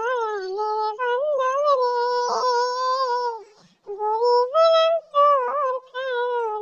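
A high-pitched voice-like sound in long, held, wavering notes, in four stretches with short breaks between them, with nothing playing under it.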